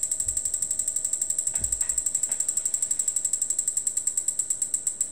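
Genrad Strobotac Type 1531 stroboscope flashing, its flash tube ticking rapidly at about ten ticks a second, triggered from an external frequency generator. A steady high-pitched whine runs under the ticks.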